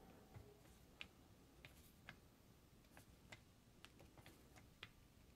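Faint, irregular clicks from a Wheeler FAT torque wrench driving the scope-ring screws, snugged to 10 inch-pounds in a crisscross pattern.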